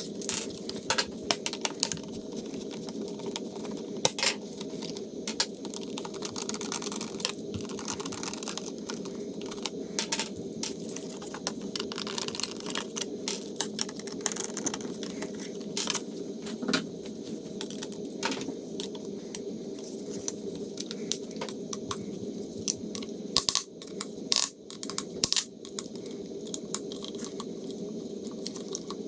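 Irregular clicks, taps and light clatter of small plastic and metal parts being handled and fitted on a motorcycle's cornering-light mount, over a steady background hum, with a busier run of knocks about 24 seconds in.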